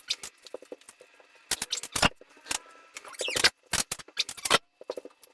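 Parrot eating a treat: irregular sharp crunching clicks and crackles, with a few short squeaky notes.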